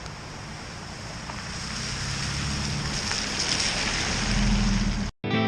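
Car driving on a wet road: steady tyre and road hiss with a low engine hum, growing gradually louder. It cuts off abruptly near the end.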